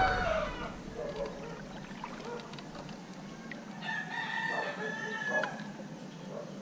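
Rooster crowing: the tail of one crow in the first second, then a full crow of under two seconds about four seconds in.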